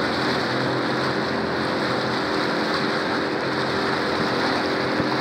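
Small fishing boat's outboard motor running at a steady speed, a constant hum, with water and wind noise as the boat moves along.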